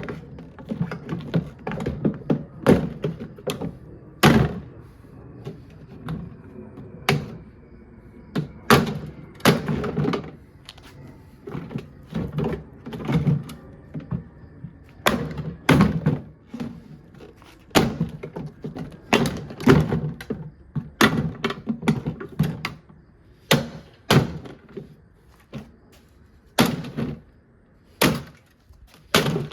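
Plastic body of a portable washing machine being struck again and again as it is smashed apart: irregular hollow thunks, roughly one or two a second.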